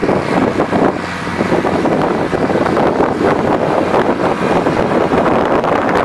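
Belarus tractor's diesel engine running steadily as it drives across the field, with heavy wind noise buffeting the microphone.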